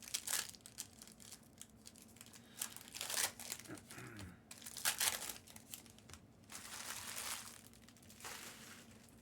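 Foil packs of Panini Optic football cards being torn open and the cards handled: several separate bursts of crinkling and ripping.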